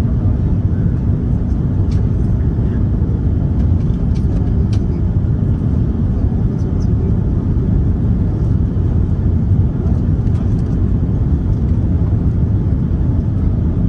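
Steady low rumble of airliner cabin noise on approach to landing: engines and airflow heard from inside the cabin, with a few faint light ticks.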